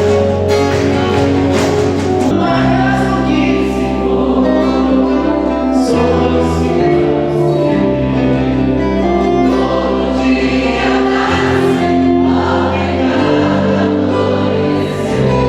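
Choir singing with instrumental accompaniment, a sustained bass note shifting every couple of seconds beneath the voices.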